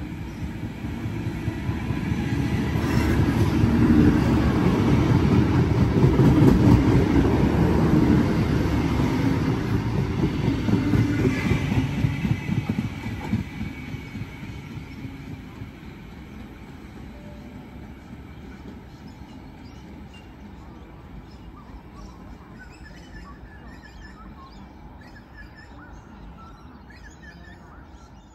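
Sydney suburban double-deck electric train approaching and running past the platform. Its rumble builds to a peak a few seconds in, holds, then fades steadily after about thirteen seconds as the train draws away. Faint bird chirps are heard near the end.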